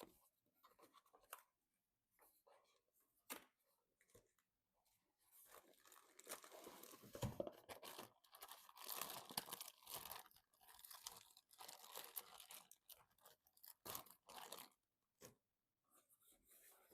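Hands handling PC parts and packaging: a few small clicks, then a long stretch of rustling and scraping, busiest from about five to fifteen seconds in.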